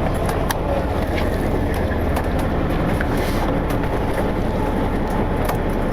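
Steady low rumble of a fishing boat's engine running, with a few scattered light clicks and knocks.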